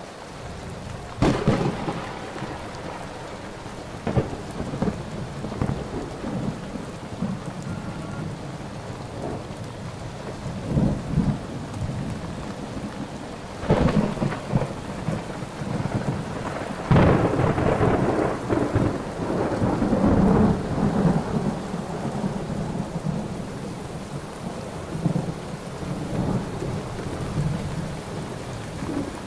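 Thunderstorm with rain falling steadily, broken by several sharp thunderclaps that roll on into long low rumbles. The loudest claps come about a second in, near four seconds, around fourteen seconds and around seventeen seconds.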